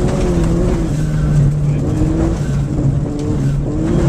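VW Golf rally car's engine running hard at speed on a gravel stage, heard from inside the cabin. Its pitch steps and bends up and down with the throttle over a constant rush of tyre and gravel noise.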